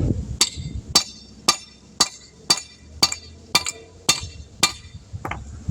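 Hammer striking a rust-seized brake caliper guide pin, about ten sharp metallic blows at roughly two a second, to drive the frozen pin down.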